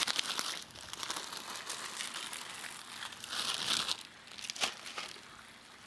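Plastic bag of peas crinkling as it is handled and the peas are tipped out into a skillet, with a louder burst of crinkling about three and a half seconds in and a sharp click just after.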